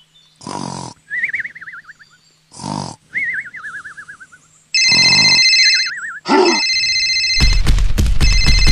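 Cartoon snoring sound effect: three rasping snores, each followed by a wobbling whistle falling in pitch. A phone ringtone of steady high tones starts about five seconds in, then becomes a loud, fast ringing near the end.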